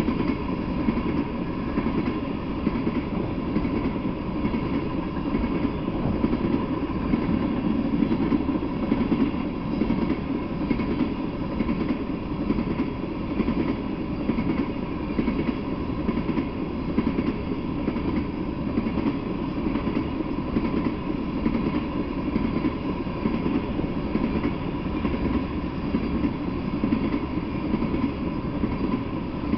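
Freight train of tank cars rolling slowly past: a steady rumble of wheels on rail, with no distinct clicks at the rail joints.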